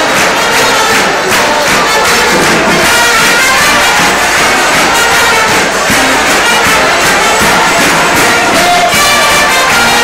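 A brass band playing, with a crowd audible underneath.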